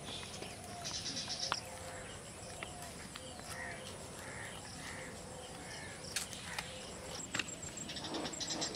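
Birds calling in rural outdoor ambience: short chirps and quick trilling runs, over a low steady background hum, with a few sharp clicks.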